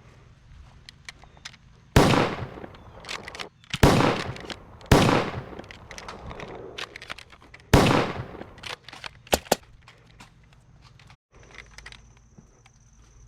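Four loud, sharp bangs, each fading out over about a second, among small scattered ticks and a couple of sharp clicks.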